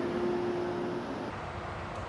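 Farm tractor engine running as the tractor drives off, a steady hum that fades away; about a second in the sound changes to an even hiss.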